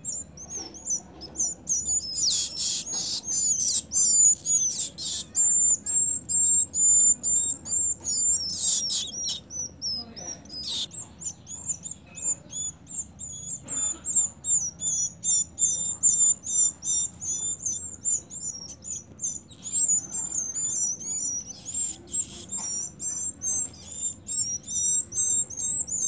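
Young golden-bellied gerygones giving a constant stream of thin, high begging chirps, several a second. A few brief, louder, scratchy bursts break in now and then.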